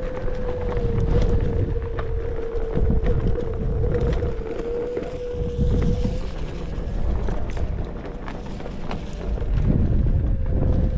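Onewheel electric board's hub motor whining steadily while riding, its pitch wavering slightly as the speed changes, over a low rumble of wind on the microphone and scattered short clicks.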